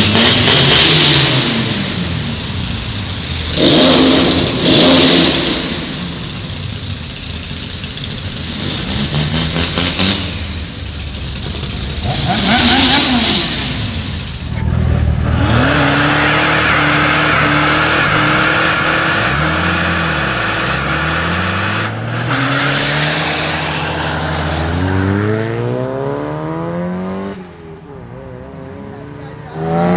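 Diesel car engines revving hard in short rising-and-falling bursts, then a longer stretch of steady running with the revs climbing again near the end.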